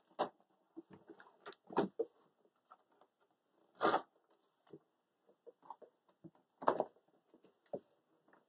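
Irregular short rustles, scrapes and tearing of cardboard packaging being opened by hand, the loudest about four seconds in and again near seven seconds.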